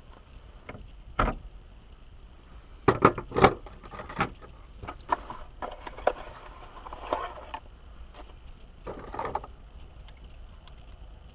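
Irregular clicks, knocks and clatter of hand tools and parts being handled during steering column disassembly, with a close run of sharp clicks about three seconds in and smaller groups later.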